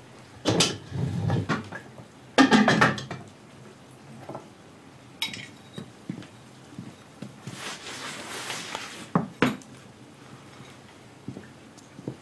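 Metal pots, pans and dishes clattering and clinking as they are handled, with two louder clatters in the first few seconds, the second one ringing. Scattered lighter knocks and a short hiss about eight seconds in follow.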